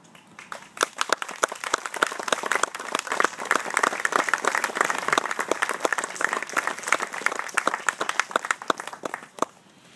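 A small crowd applauding, building up over the first couple of seconds and dying away near the end.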